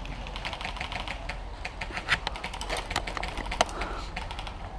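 Rapid, irregular clicking and ticking of an airsoft skirmish: airsoft guns firing and BBs striking around, with a couple of louder clicks about two and three and a half seconds in.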